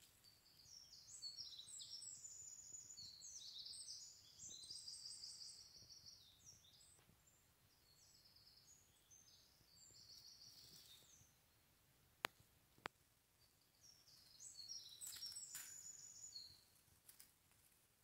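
A songbird singing faintly: quick runs of high twittering notes in three bouts, with two sharp clicks in the pause between the second and third.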